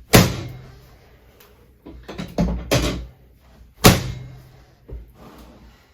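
Chiropractic drop table's drop section slamming down under the adjusting thrust: a loud clunk at the start and two more a little past halfway, with softer knocks in between.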